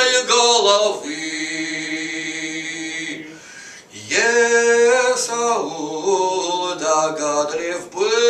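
A man singing a Russian folk song unaccompanied, holding long notes, with a short break a little after three seconds in before the next phrase.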